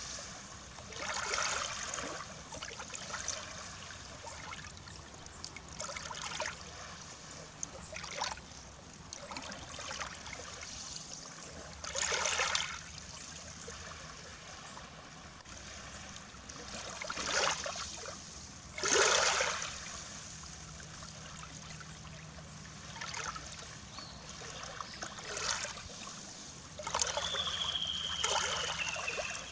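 Small waves on the Baltic Sea shore, lapping and breaking in irregular washes every few seconds. A bird gives a thin whistle, falling slightly in pitch, near the end.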